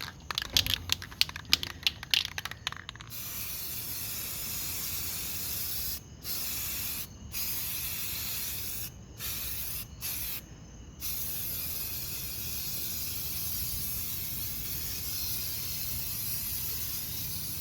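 A quick run of clicks and rattles, then an aerosol spray can of primer hissing steadily for most of the time. The spray stops briefly five times, between about six and eleven seconds in.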